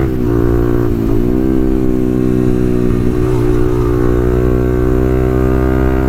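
Motorcycle fitted with an aftermarket full-system exhaust running under way; the engine note dips briefly twice near the start, then holds steady.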